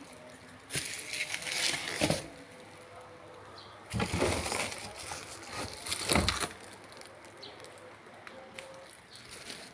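Bubble wrap and plastic film crinkling and rustling as they are pulled and handled, in two bouts of a couple of seconds each. Each bout ends with a dull knock, about two seconds in and again about six seconds in.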